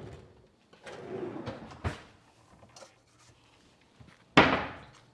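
Kitchen handling noises as garlic is fetched: rustling and a light click, then one sharp knock about four seconds in, like a drawer or cupboard shutting.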